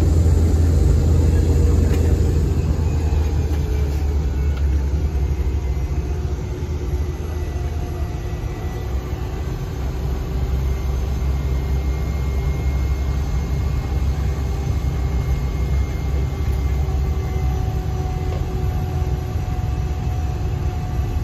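Cessna 208's Pratt & Whitney PT6A turboprop engine and propeller, heard from inside the cabin as a loud, steady low rumble. It eases off over the first several seconds while the plane slows on the ground after landing, with faint whining tones gliding down, then holds steady.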